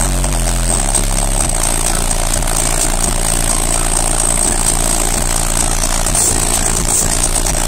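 Six 15-inch SSA Evil subwoofers, driven by two Taramps T60k amplifiers, playing loud, steady bass notes inside the truck cabin.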